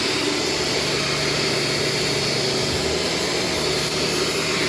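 Shark self-cleaning vacuum cleaner running steadily: a constant rush of air with a thin high motor whine, and a low hum joining in about half a second in.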